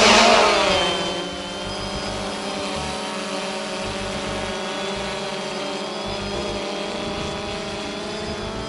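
DJI Phantom 2 Vision quadcopter's four electric motors and propellers lifting off and flying: a multi-tone buzz that is loudest at the start, drops in pitch and level over about the first second, then holds steady.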